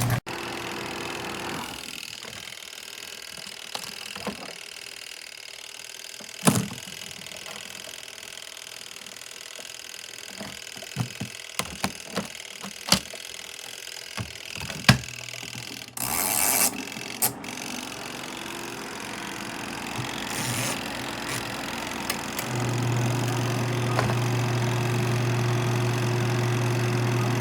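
Motor of an Auertech portable twin-tub washing machine humming steadily: it stops at the start, scattered clicks and knocks follow with a short hiss about halfway through, and the motor starts again and runs steadily through the last few seconds.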